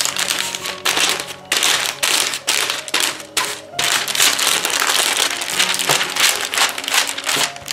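Baking paper crinkling and rustling under a rolling pin as it rolls dough between two sheets, in repeated strokes of about a second or two with short breaks between them.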